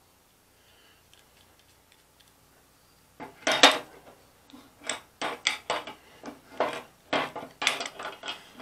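Metal clinking and clattering of a wrench against the metal parts of a frost-free hydrant head as a part is screwed in and snugged. It comes in short, irregular clusters of clicks, starting about three seconds in.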